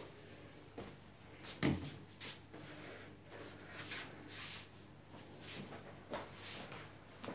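Scattered rustles and light knocks of handling, with one dull thump about a second and a half in, as a foam massage bolster is fetched and set under the patient's leg on the couch.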